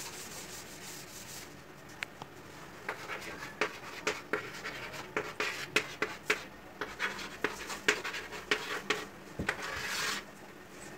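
Chalkboard being wiped with a duster, a steady rubbing for the first second and a half. Then chalk writing on the board: many sharp taps and short scratches, with a longer scrape near the end.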